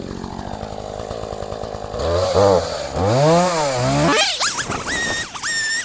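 Gasoline chainsaw running steadily, then revved up and down twice about halfway through. Near the end a high, wavering tone takes over.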